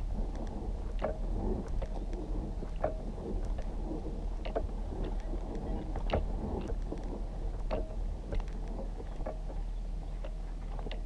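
Footsteps on dry dirt, with irregular knocks and rustles from the wearer's suit and body-mounted camera rig about once a second, over a steady low hum.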